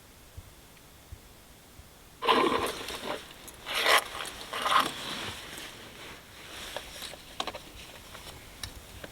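Close rustling and scraping of something being handled in a small space: quiet at first, then a run of loud rubbing strokes starting about two seconds in, trailing off into a few light clicks and taps.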